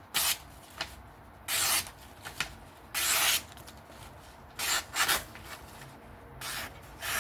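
A freshly sharpened 14C folding-knife blade slicing through paper in about seven short strokes, each a brief hissing swish.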